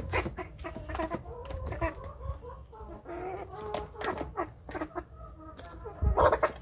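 Young chickens clucking with many short calls while they eat, over quick clicks of beaks pecking at the feed bowls. A louder short burst comes near the end.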